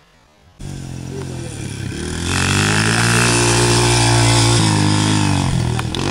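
Small dirt bike engine cutting in suddenly about half a second in and running at fairly steady revs. It is loudest in the middle as the bike rides close past, then eases off a little near the end.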